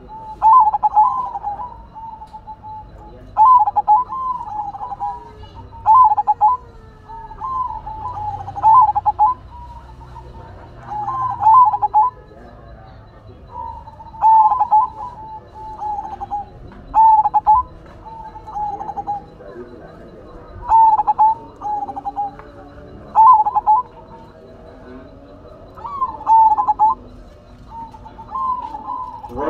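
Zebra dove (perkutut) cooing: a short, rolling trilled phrase repeated about every two to three seconds, around a dozen times.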